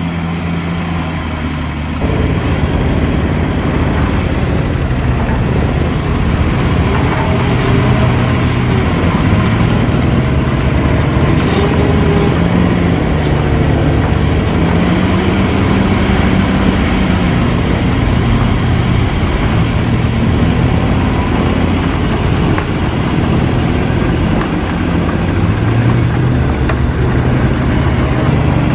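Heavy diesel engine of earthmoving machinery running, its pitch rising and falling as it revs up and down. It gets louder about two seconds in.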